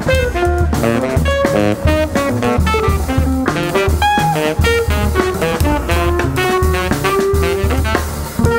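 Jazz quartet playing live: quick melodic lines from tenor saxophone and electric guitar over walking double bass and a drum kit with cymbals.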